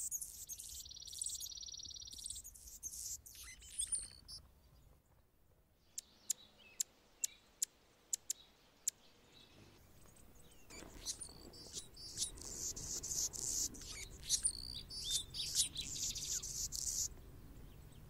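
Anna's hummingbird singing high and scratchy: a buzzy phrase and scratchy notes at the start, a run of about eight sharp chips in the middle, then a long scratchy, buzzing song phrase near the end.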